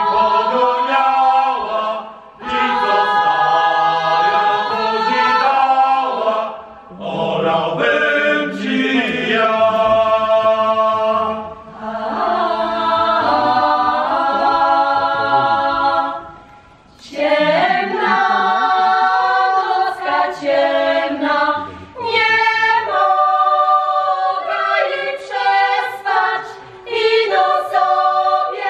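Mixed choir of women's and men's voices singing a Polish Kurpie folk song a cappella, in long held phrases broken by short breaths; the notes grow shorter and choppier about two thirds of the way through.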